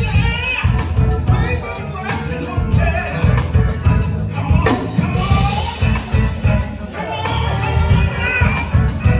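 Live music: a singer with a band, carried over a steady beat and heavy bass.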